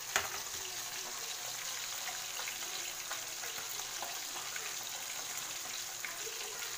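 Two whole tilapia frying in hot oil in a wok: a steady sizzle dotted with small crackling pops. A single sharp click sounds just after the start.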